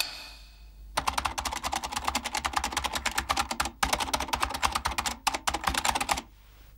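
Typewriter keys clacking in rapid runs with short pauses between them, starting about a second in and stopping shortly before the end. A single sharp hit with a short ring comes at the very start.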